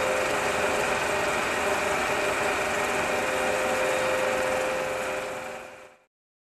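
Vintage film projector running, a steady mechanical whirring with a hum, fading out about five and a half seconds in and cutting to silence just after.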